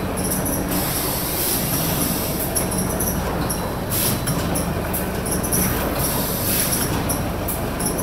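ITALPACK PACK25 flour packing machine running, a steady mechanical rumble with frequent short bursts of high hiss, as paper bags of flour move along its conveyor.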